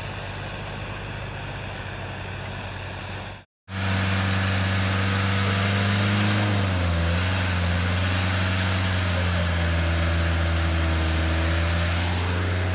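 Off-road vehicle engines: a Lada Niva driving on a dirt track for the first few seconds, then after a short cut another 4x4's engine running steadily while it sits stuck in mud on a winch cable, its pitch dipping briefly about halfway through.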